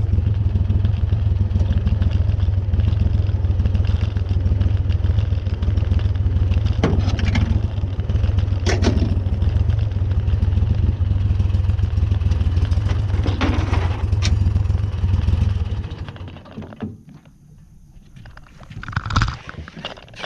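Boat motor running steadily, pushing the flat-bottom aluminium boat, with a few knocks over it; about three-quarters of the way in the motor is cut off and the boat glides. A short burst of noise comes near the end.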